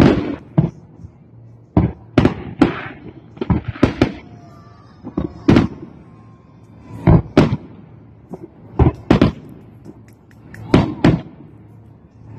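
Aerial firework shells bursting overhead in an uneven run of sharp bangs, a dozen and a half or so, many coming in quick pairs, each with a short rolling echo.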